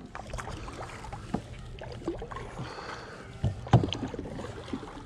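Handling noise in a plastic sit-on-top kayak while a fish is fought on a baitcasting rod: scattered knocks and taps against the hull, with one loud thump a little under four seconds in.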